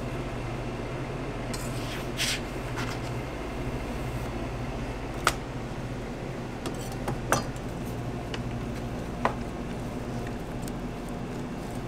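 Metal kitchen utensils clinking and knocking against boards and containers a few times, the sharpest knocks about five and seven seconds in, over a steady low hum.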